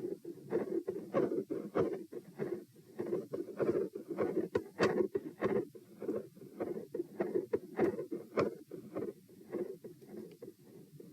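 Heart sounds recorded at the chest: a run of soft thudding beats that swell and fade in loudness in a pattern that follows breathing.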